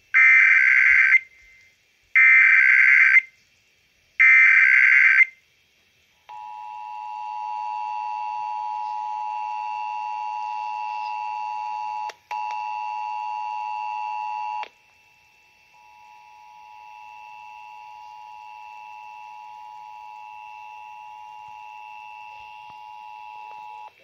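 A Midland NOAA weather radio's speaker playing an Emergency Alert System test: three loud one-second screeching SAME data bursts about two seconds apart, then the steady two-tone EAS attention signal for about eight seconds. A quieter steady tone follows.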